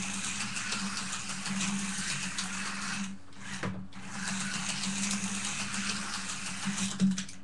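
Slot cars running on their track, the small electric motors whirring steadily; the whirr drops out briefly about three seconds in, then picks up again. A sharp clack near the end, the loudest moment, before the whirr stops.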